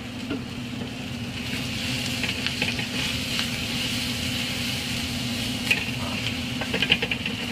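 Bacon, shallots and garlic sizzling in butter in a skillet on a gas burner, with the pan being tossed and stirred. A few sharp clinks near the end, over a steady low hum.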